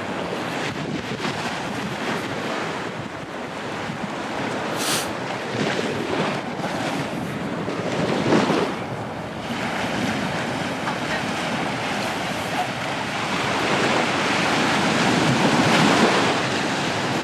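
Sea waves breaking and washing up on a sandy beach, one surge cresting about halfway through and a longer one building near the end, with wind rumbling on the microphone.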